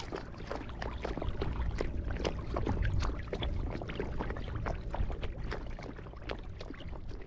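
Water splashing and lapping in many small irregular splashes, over a steady low wind rumble on the microphone.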